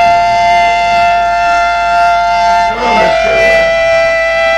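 Live music: an instrument holds two steady notes together as a loud drone, and the chord shifts a little just under three seconds in.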